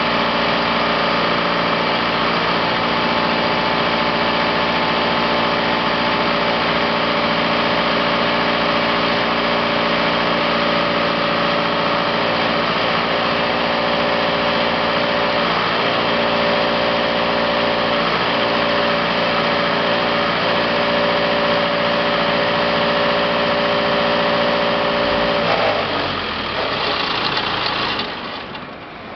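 Engine of a Scorpion towed concrete pump running steadily, driving the hydraulics that open its outrigger legs. Near the end its note drops and the sound falls away.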